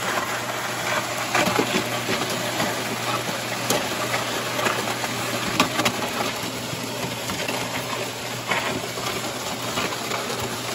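Mud Mixer portable concrete mixer running with a steady hum while it feeds wet concrete out of its chute into a footing hole, with scattered ticks and patters from concrete and grit dropping in.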